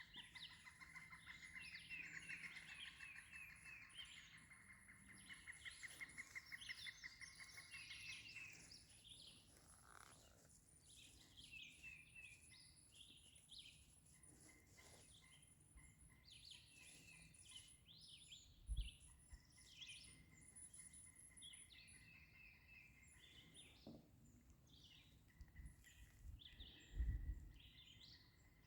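Faint chorus of several songbirds chirping and singing, with a rapid trill in the first several seconds and a thin, high, pulsing buzz throughout. Two brief low thumps come near the end.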